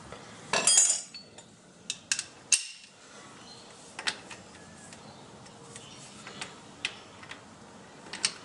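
Metal hand tools being handled: a clatter about half a second in, then scattered light clinks and knocks.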